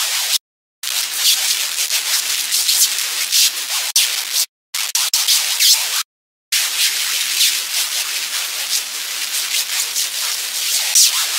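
Harsh, hissy scratching noise, mostly high-pitched, that cuts out abruptly to dead silence three times.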